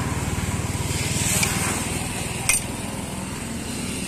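A small engine idling nearby with a steady, even putter, and a single sharp clink about two and a half seconds in.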